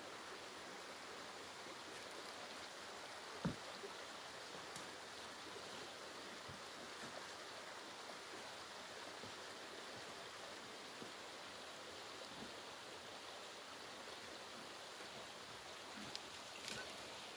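Steady rushing of a distant mountain stream, with one dull thump about three and a half seconds in and a few faint clicks near the end.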